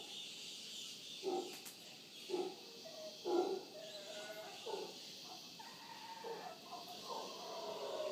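Mantled howler monkeys calling: a series of short calls roughly a second apart, with more calls overlapping near the end.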